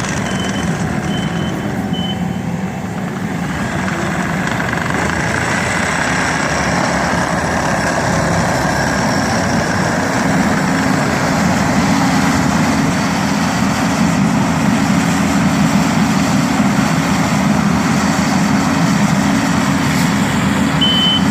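Bobcat skid steer's diesel engine running steadily, getting louder and heavier about ten seconds in. Its backup alarm beeps several times near the start and again at the very end.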